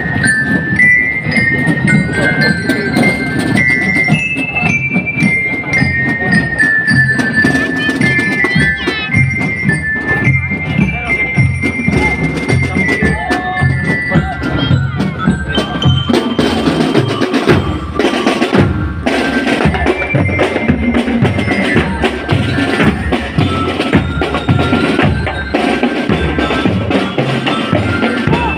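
Drum and lyre corps playing while marching: bell lyres ring out a stepping melody over a steady beat of snare and bass drums.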